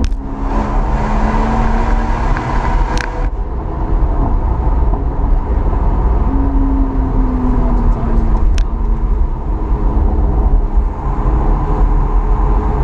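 BMW M140i's turbocharged 3.0-litre straight-six with an aftermarket BCS valved exhaust, heard from inside the cabin at track pace, its note rising and falling over heavy road and wind noise. A few sharp clicks cut through, about three seconds in and again past eight seconds.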